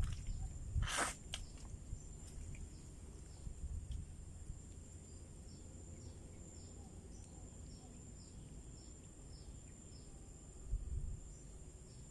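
Outdoor ambience: a steady high-pitched insect drone with a run of short, quickly repeated chirps in the middle, over a low rumble. A sharp click comes about a second in, and the rumble swells briefly near the end.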